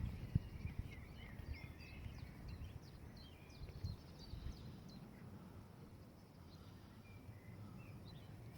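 Small birds chirping in quick, short notes through the first half, over a low rumble of background noise, with a single sharp knock just after the start.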